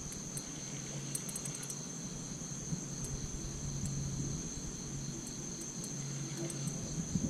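Chorus of night insects trilling steadily at a high pitch, with a few faint light clicks scattered through it.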